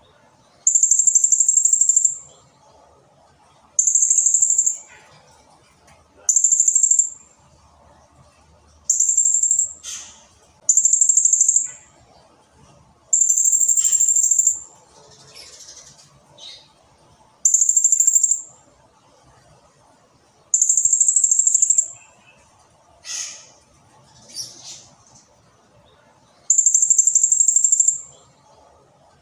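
Blue-crowned hanging parrot (serindit) singing: nine loud, shrill, rapidly pulsed trills, each about a second long and one to three seconds apart, with fainter short chirps in between.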